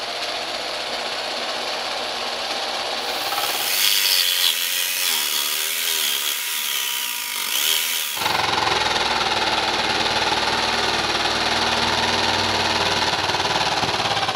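Jigsaw running steadily as it cuts through a vinyl floor plank. From about four to eight seconds in the sound turns thinner and higher, with a wavering pitch, before the fuller cutting sound returns.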